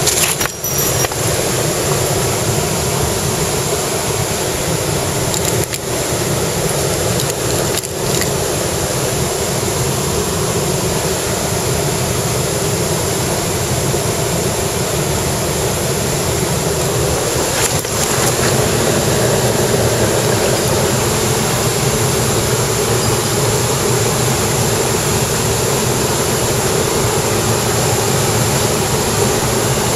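Mountain stream rushing over rocks: a loud, steady wash of water, with a few brief knocks.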